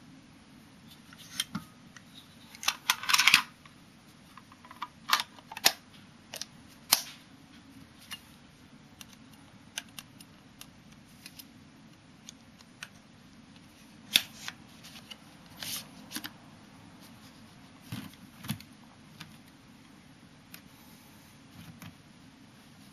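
Parts of a 1953 Hasselblad 1000F medium-format camera being handled and fitted together: a series of sharp clicks and clacks from its viewfinder, film magazine and dark slide. The loudest run of clicks is about three seconds in, with scattered single clicks after.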